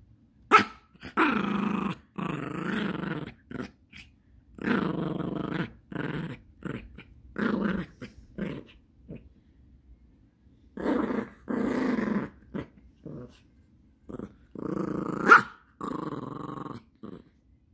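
Yorkshire terrier play-growling while mouthing and tugging a plush toy: a string of separate growls, each lasting about half a second to a second, with short pauses between them.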